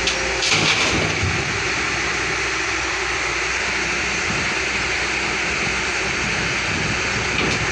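Excavator's diesel engine running steadily, with a brief louder hiss about half a second in.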